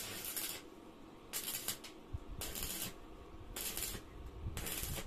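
Stick (arc) welding on mild-steel flat bar: five short bursts of crackling hiss, each about half a second, as the electrode lays quick tack welds to hold a bundle of bars together.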